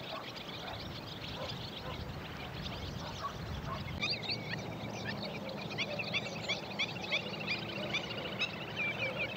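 Faint low background noise, then from about four seconds in a flock of black-winged stilts calling: many short, high calls overlapping one another.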